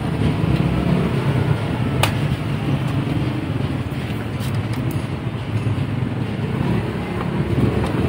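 Steady low rumble of road traffic with vehicle engines running, and one sharp click about two seconds in.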